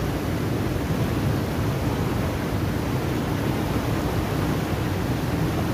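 Steady, loud rush of water churning over a weir and out of its spillway in white-water rapids.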